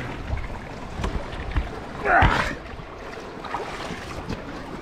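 Water sloshing around a grounded sailboat's hull, with wind buffeting the microphone and a louder burst of sound about two seconds in.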